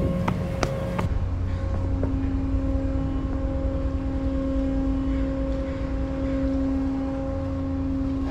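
A car ferry coming in to its dock: a steady low rumble with a held, droning hum over it. There are a few sharp clicks in the first second.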